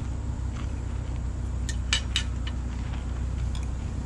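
A few light clicks of cutlery against a plate, three close together about two seconds in, over a steady low outdoor rumble.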